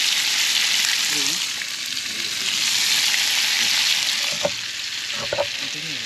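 Fish pieces frying in hot oil, a steady loud sizzle, with a few short clicks near the end.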